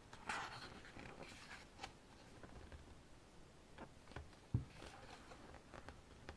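Pages of a photobook being turned and handled: stiff paper sliding and rustling, with light taps and one short thump about four and a half seconds in.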